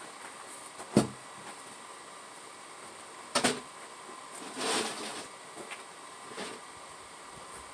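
Handling noises from work on a car's kickdown linkage underneath the vehicle: a sharp knock about a second in, another a couple of seconds later, then a short scraping rustle and a small click.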